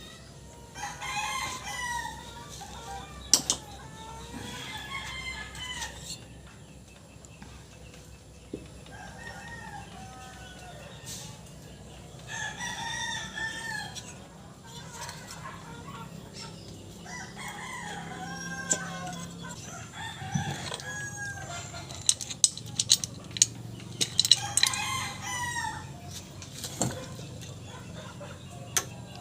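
Roosters crowing again and again, one long crow after another, with a few sharp clicks and knocks in between, most of them in a cluster near the end.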